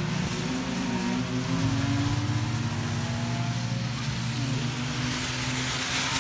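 Race car engines in the distance revving up and falling back through the gears as the cars lap a wet track, with a hiss building near the end.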